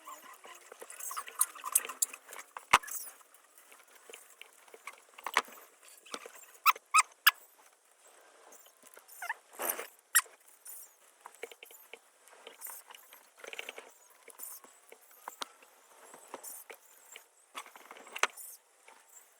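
Masking tape being pulled, torn and pressed onto a pistol slide: irregular scratchy rustles with scattered sharp clicks, the loudest a few seconds in and again around the middle.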